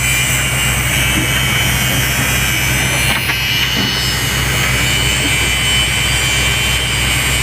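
An engine idling steadily, with a steady high-pitched whine over its low hum.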